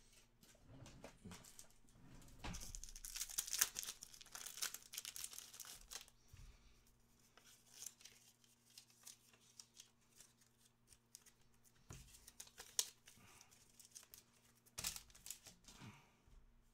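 Faint crinkling and tearing of a trading-card pack wrapper as it is opened and handled, mostly in the first third, followed by a few soft rustles and clicks as cards are handled.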